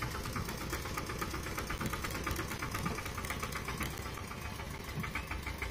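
Mini tractor's engine running steadily with a rapid, even knocking beat.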